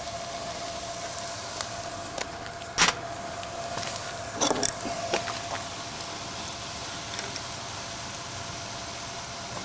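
Sharp metal clicks and taps of an adjustable wrench working the oil-intake plug on top of a steam engine's cylinder, a few about two to three seconds in and a cluster around the middle, over a steady faint whine.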